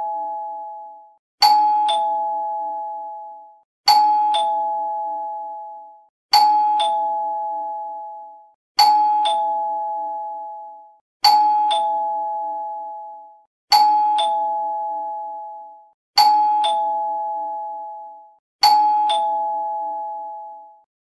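Two-note ding-dong doorbell chime played on a loop, repeating about every two and a half seconds: a higher note then a lower one, each ringing and fading away.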